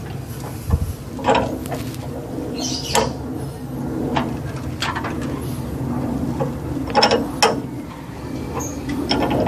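Ratcheting and metallic clicks of a car engine being turned over by hand with a wrench, with irregular sharp clicks a few seconds apart. The crankshaft is being rotated to bring a cylinder to top dead centre for a valve clearance adjustment.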